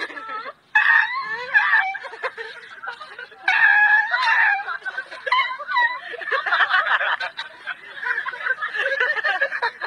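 A man's vocal imitation of a dog yelping and whining as if being beaten: repeated high, wavering cries, with laughter mixed in.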